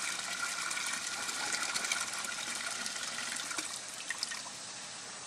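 Water running through a clear-PVC bell siphon in a small flood-and-drain grow bed as it cycles. The rush of water drops to a quieter, steady flow about four seconds in, with a couple of small clicks.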